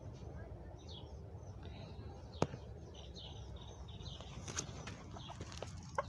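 Faint, repeated high peeps of a chick squealing in distress, with one sharp click about two and a half seconds in.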